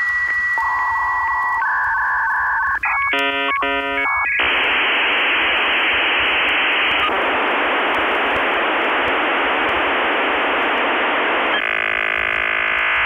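Dial-up modem handshake with the sound of a phone line: a high steady tone and other single tones, then rapid chords of many tones about three seconds in. A long even hiss follows from about four seconds, and another stack of tones comes near the end.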